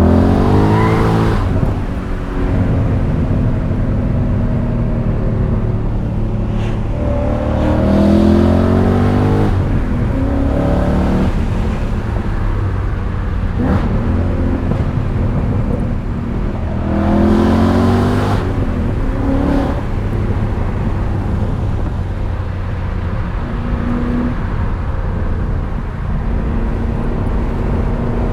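BMW E39 M5's 4.9-litre V8 under hard acceleration, its note climbing in pitch in three strong pulls, about 8 seconds apart, with steadier running between them.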